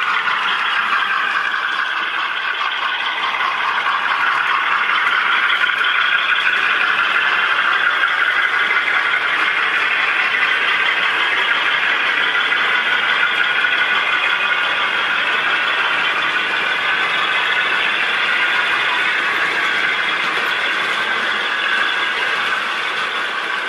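Model train running along the layout's track: a steady whine and squeal from the locomotive's motor and the wheels on the rails, its pitch drifting slowly up and down.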